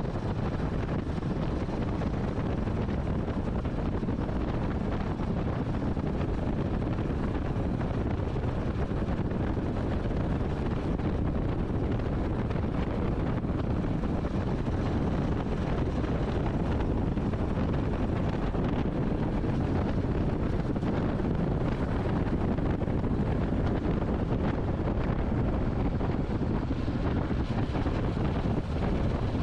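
Royal Enfield Classic 350's single-cylinder engine running steadily as the motorcycle rides along, mixed with heavy wind noise on the microphone.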